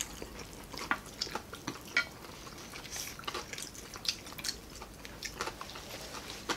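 Eating at a table: scattered short clicks of a spoon and fingers against plates and bowls, mixed with close chewing of crispy fried pork belly. The sharpest click comes about two seconds in.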